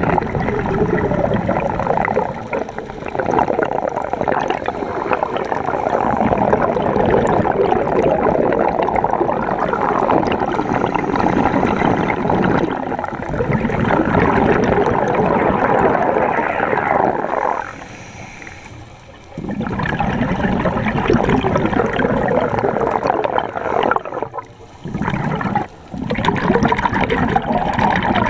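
Underwater bubbling and rushing of water, heard beneath the surface, a dense continuous gurgle that drops away briefly twice in the latter part.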